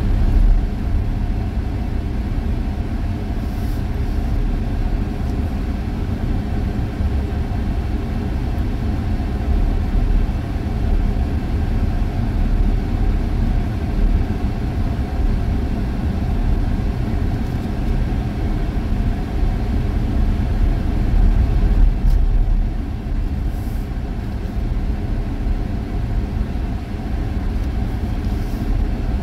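Steady low rumble of engine and road noise heard from inside the cab of a vehicle driving at a constant speed.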